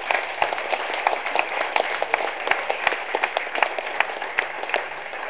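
Audience applauding: many hands clapping at once in a dense patter, thinning out near the end.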